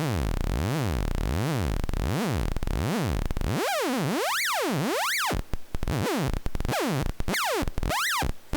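A modular synthesizer oscillator (VCO) sounds a continuous tone whose pitch an LFO sweeps steadily up and down, a little more than once a second. About three and a half seconds in, the sweeps grow much wider and reach far higher as the joystick changes the modulation's scale and offset. In the second half the sweeps turn uneven, with brief dropouts.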